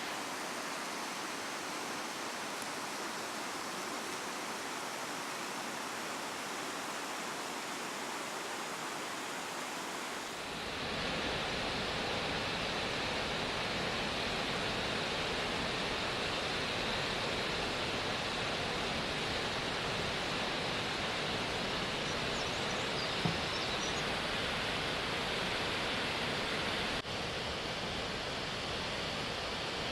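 Steady rushing of a waterfall. It becomes fuller, deeper and a little louder about a third of the way in.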